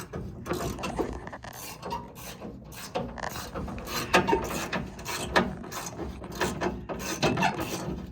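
A hand ratchet being cranked in short strokes, its pawl clicking irregularly, with some scraping and rubbing.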